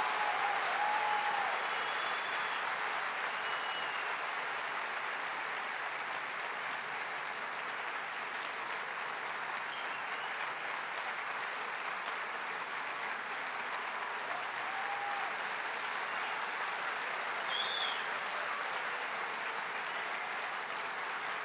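Large audience applauding steadily, the clapping easing off slightly over about twenty seconds.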